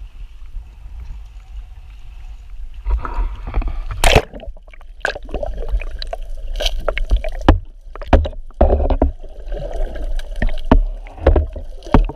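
A camera plunged into the sea: a low rumble of wind and water, then a loud splash about four seconds in, then muffled underwater sloshing and bubbling broken by many sharp clicks and knocks.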